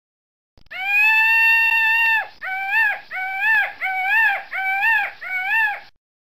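Peacock calling: one long, held wailing call, then five short calls in quick succession, each rising and falling in pitch.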